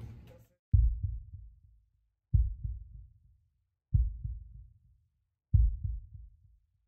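A deep, heartbeat-like thump repeating about every second and a half, four times, each beat starting sharply and dying away in a short trail of echoes.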